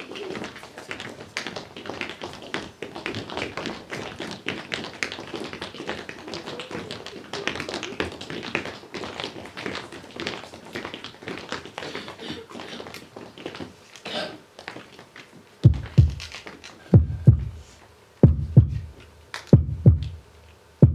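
Tap shoes striking a hard floor in fast, dense runs of taps. About fifteen seconds in these give way to loud, deep thumps in an even slow rhythm, roughly one every 1.3 seconds, like a heartbeat.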